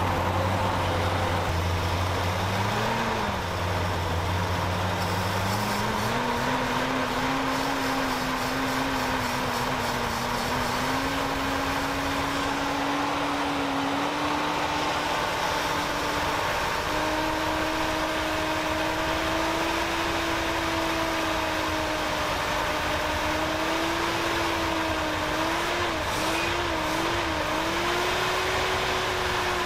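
Carbureted engine of a 1979 Ford one-ton truck running while automatic transmission fluid is poured down its carburetor to free up stuck piston rings. The revs step up about six seconds in, climb slowly, and waver near the end.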